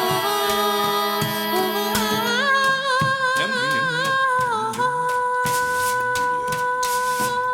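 Improvised vocal music: a voice sings wordlessly with vibrato, sliding between notes, then holds one long steady note from about five seconds in, over light percussive taps.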